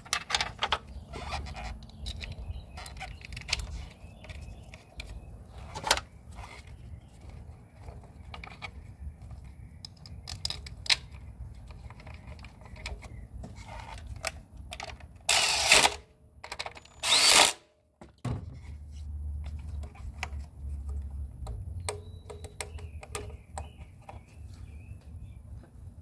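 Ignition coil packs on a Hyundai engine being unplugged, swapped between cylinders 3 and 4 and pushed back in by gloved hands: scattered plastic clicks, knocks and rattles of the coils and their connectors, with two louder rushes of noise about two-thirds of the way through. The swap is a test of whether the cylinder 4 misfire follows the coil.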